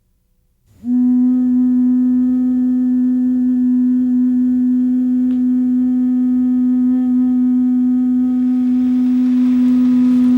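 A clay ocarina starting about a second in and holding one long, low, steady note. A breathy hiss grows under the note near the end.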